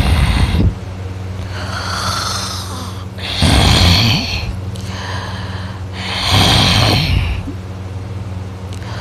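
A sleeping man snoring: loud snores about every three seconds, the first ending just under a second in and the next two around three and a half and six and a half seconds in, with quieter breaths between.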